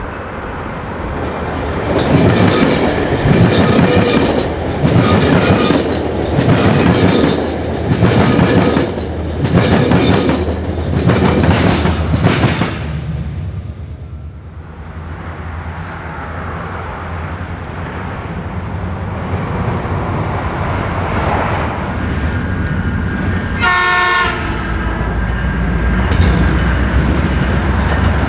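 A train passing close by, its wheels clattering rhythmically over the rail joints, roughly one or two clacks a second, for about ten seconds. The clatter then fades into a low, steadily building diesel locomotive rumble, broken about 24 seconds in by a short horn blast.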